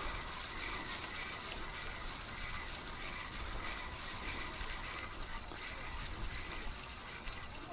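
Small waves lapping and trickling against a reedy bank, a steady soft wash of water with a low wind rumble beneath it.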